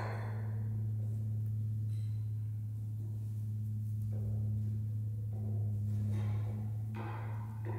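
Steady low droning tone with a fainter tone an octave above it, held unchanged throughout. Two faint short noises sound about four and seven seconds in.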